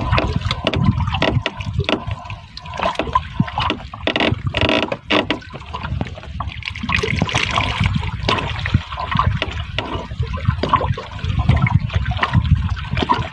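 Sea water sloshing and slapping irregularly against the hull of a small boat.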